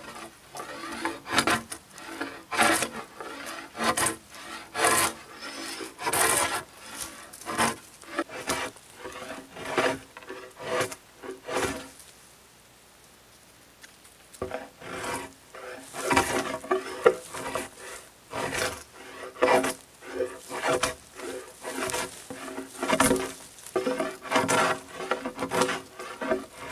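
Bow saw cutting through a wooden pole in steady back-and-forth strokes, about one and a half a second, with a short pause near the middle.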